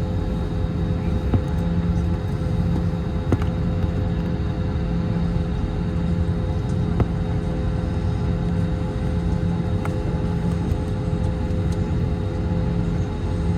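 Airbus A321 during pushback with its engines not yet started: a steady low rumble and hum, with a low tone that comes and goes every second or two and a few faint clicks.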